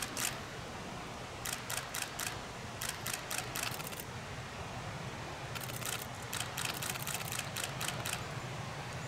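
Camera shutters firing in rapid bursts of clicks, three bursts in a row, over a low steady hum.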